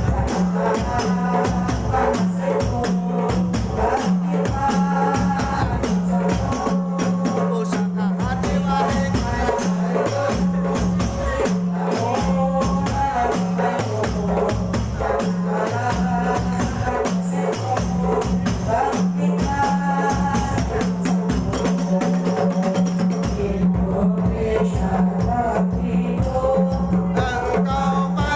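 Loud music with fast, dense jingling percussion like a tambourine, a melody line and a low note repeating on a steady pulse.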